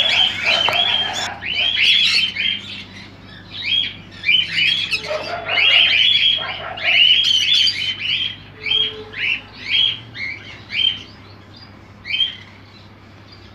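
Green-cheeked conures (pineapple and yellow-sided colour morphs) giving quick runs of short, harsh chirping calls, in bursts with brief pauses, thinning out over the last few seconds.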